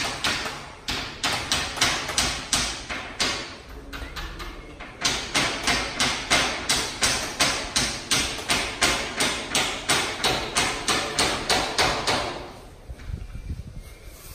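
Hammering: a run of sharp blows, uneven at first, then after a short lull a steady run of about three or four a second that stops near the end.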